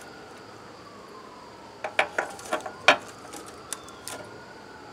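A handful of sharp metallic clicks and clinks, bunched about two to three seconds in with one more a second later, as a socket wrench and the carburetor intake are worked loose from an old Craftsman push-mower engine. A distant siren wails faintly behind.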